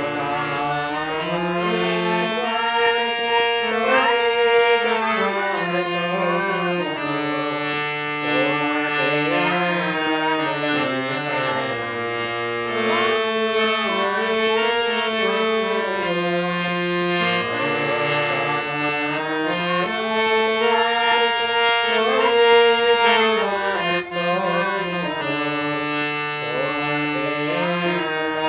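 Harmonium played solo: a hand-pumped reed organ sounding a melody of held reedy notes over sustained lower notes, without singing.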